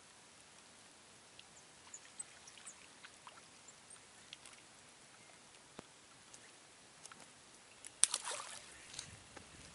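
Quiet open-air background with scattered faint ticks and small high chirps. About eight seconds in comes a sudden splash-like burst of noise that dies away over about a second.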